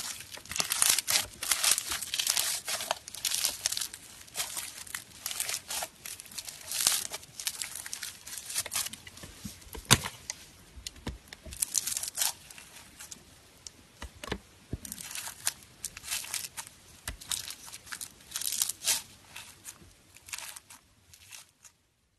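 Bead-filled crunchy slime being squeezed and pressed by hand, the beads crackling and popping in irregular bursts, with a few sharper snaps.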